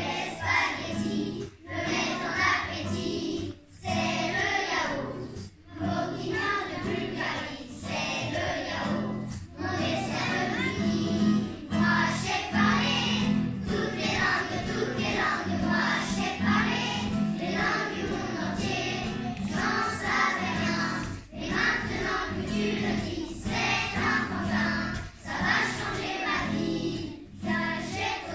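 Choir of young children singing a song together to acoustic guitar accompaniment, in phrases with short breaks for breath.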